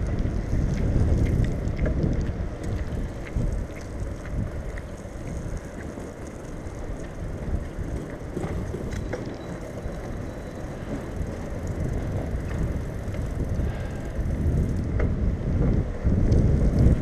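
Specialized Crosstrail hybrid bicycle ridden over wet paving: a low rumble of tyres and wind on the microphone, with a few light clicks and rattles. It is louder at the start and again near the end.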